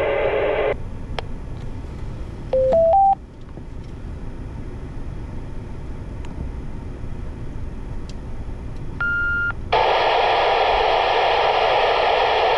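FM ham radio transceiver audio: open-squelch static hiss that cuts off just under a second in, then three short rising electronic beeps from the radio. A single higher beep comes near 9 s, and from about 10 s loud, steady static hiss fills the speaker.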